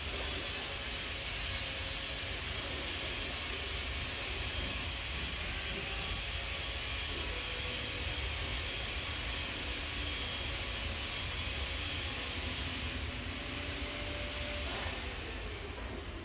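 A steady running motor with an airy hiss. The hiss drops away about thirteen seconds in, and near the end the motor's tone falls in pitch as it winds down.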